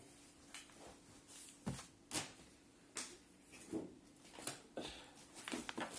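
Faint handling noises: a scattering of light knocks, taps and rustles as things are picked up and moved about.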